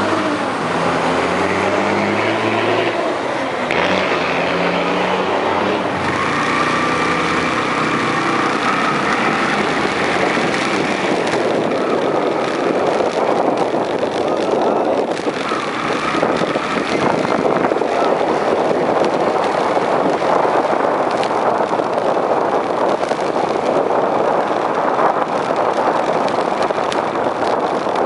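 Ride on a Yamaha Enticer 125 motorcycle through wet streets: a steady rush of wind on the microphone and tyre hiss over the engine's running. In the first few seconds an engine note rises and falls in steps.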